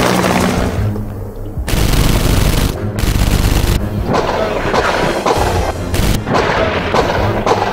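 Bursts of gunfire sound effects, with machine-gun-like volleys and booms, over background music.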